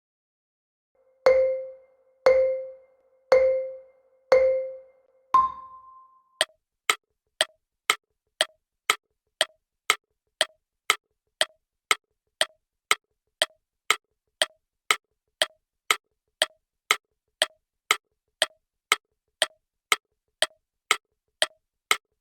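Quiz countdown sound effect: four low beeps about a second apart, then one higher beep, then a timer ticking steadily about twice a second.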